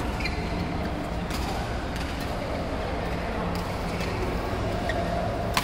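Badminton rackets hitting a shuttlecock during a rally in a large indoor hall: a few sharp cracks, one about a second in and the loudest at the very end, over a steady din of voices and play from other courts.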